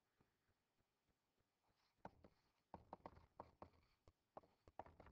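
Faint, irregular taps and light scratches of a stylus on a tablet screen during handwriting, starting about two seconds in after near silence.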